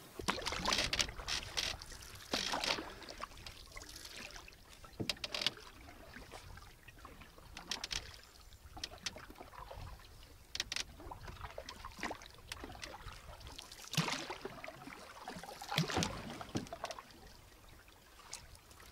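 Canoe paddling: a wooden paddle dipping and pulling through calm lake water, with irregular splashing and dripping strokes every couple of seconds and a few sharp knocks.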